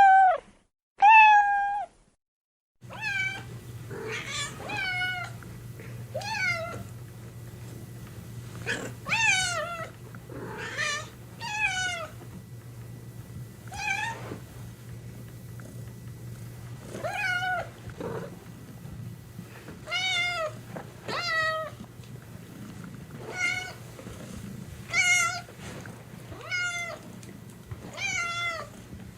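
Domestic cat meowing: two loud meows at the start, then after a short gap, repeated short meows that fall in pitch, coming every second or two over a steady low hum.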